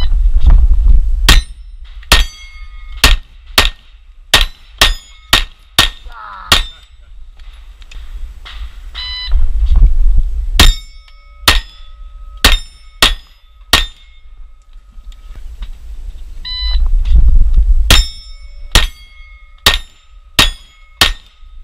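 Three strings of Glock 34 9mm pistol fire, each started by an electronic shot-timer beep. About five to seven quick shots follow each beep, with steel target plates ringing after hits. A low wind rumble on the microphone comes with each beep.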